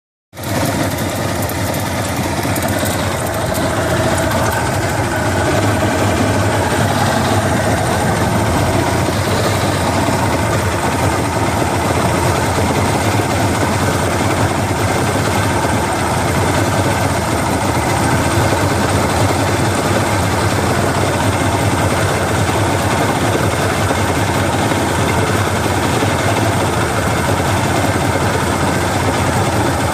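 Johnson 150 hp outboard motor running steadily, with a rattle from about one to five seconds in; the rattle comes and goes and gets louder at higher rpm, and its cause is unknown to the owner.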